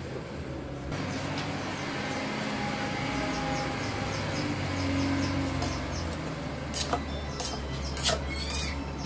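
Chopsuey vegetables in a covered aluminium wok cooking with a steady sizzle and hiss. Near the end come a few sharp metal clinks and knocks as the lid comes off and a spatula tosses the vegetables against the wok.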